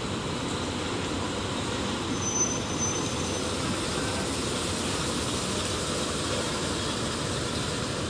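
Diesel engine of a Super Luxury coach bus running steadily as the bus pulls away and turns past at close range. A brief high-pitched squeal comes about two seconds in.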